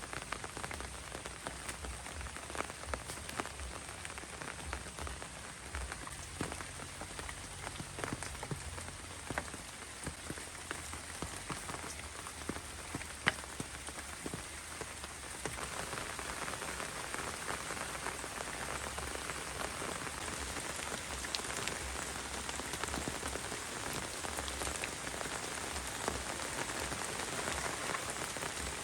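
Heavy rain falling steadily, with many individual drops landing as sharp ticks; it grows heavier about halfway through.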